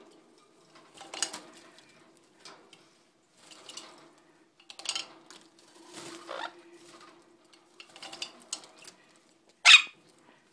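A small green parrot bathing in a plastic bird bath: short bursts of splashing and wing-fluttering in the water every second or so, with one louder, sharper burst near the end. A faint steady low hum runs underneath.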